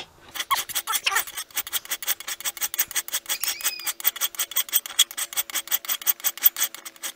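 Hand file rasping back and forth across the soft, unhardened steel of a recycled pry bar knife blank clamped in a vise, in quick, even strokes. The file is carving a finger notch and bites easily because the steel is still soft.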